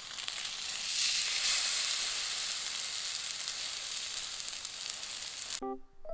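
Slices of egg-dipped bread (French toast) sizzling in butter in a frying pan, a steady high hiss that cuts off suddenly near the end. A few piano notes follow.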